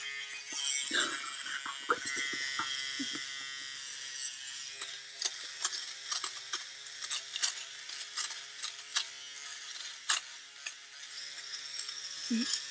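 A handheld electric fabric shaver (a lint and bobble remover) runs over a knitted sock. Its small motor hums steadily and dips in pitch now and then, while the spinning blades snip off pills with irregular clicks.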